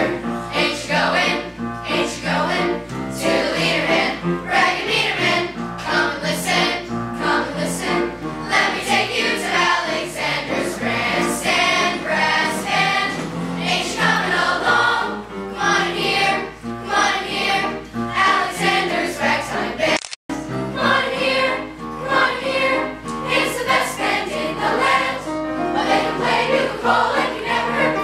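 Middle-school show choir singing over a rhythmic musical accompaniment. The recording drops out for an instant about twenty seconds in.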